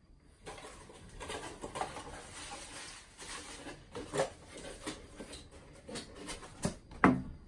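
Cardboard box and packing paper being handled and torn open by hand: a run of irregular scratchy rustling and small crinkles, with a louder thump about seven seconds in.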